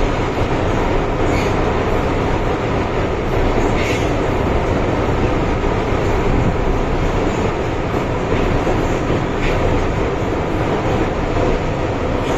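Steady running noise heard inside an MTR M-Train metro carriage moving through a tunnel: a continuous loud rumble of wheels on rail, with a few faint brief high ticks or squeals.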